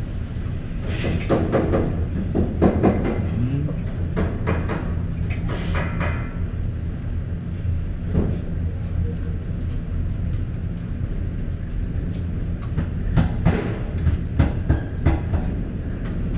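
A steady low mechanical rumble, with scattered light clicks and knocks of chopsticks against bowls and tableware.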